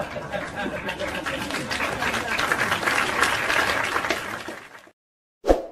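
Audience clapping after a joke's punchline, a dense steady patter that fades out and stops about five seconds in. A short sharp sound follows near the end.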